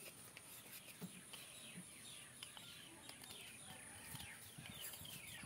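Near silence with faint chirping of small birds: a run of quick falling high notes, mostly in the second half, and a few soft ticks.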